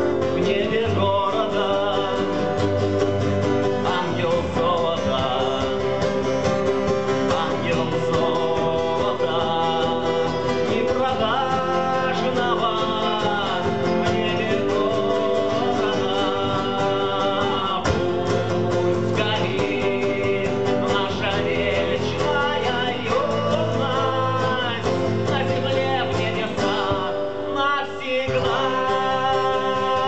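Live acoustic song: three acoustic guitars strummed and picked together under a man's lead vocal.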